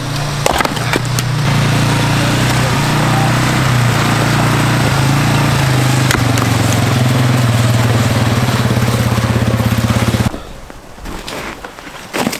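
Chainsaw engine running steadily, then shut off abruptly about ten seconds in.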